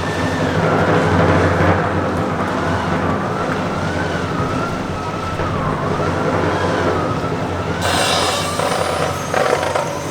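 A siren-like tone wailing slowly up and down over a steady low din; about eight seconds in, a hissy rattle joins it.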